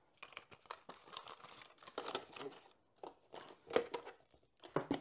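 Cardboard box and paper packaging rustling and crinkling as a phone's retail box is handled and repacked, with a couple of sharper knocks near the end.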